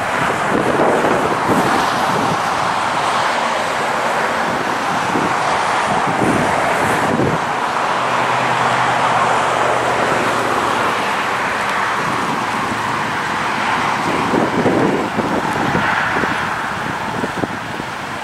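Highway traffic running past, vehicles' engines and tyres, with gusts of wind buffeting the microphone.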